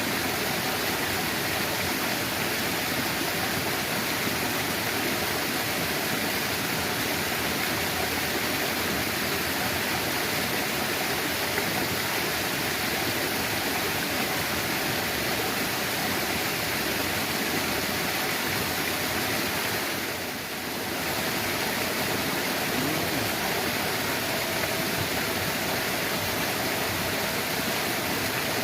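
Flowing water rushing steadily, with a short dip in level about twenty seconds in.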